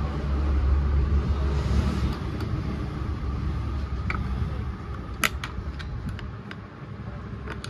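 A low rumble that fades after about two seconds, then a few sharp clicks of a metal tool against the dismantled petrol chainsaw's body, the loudest about five seconds in.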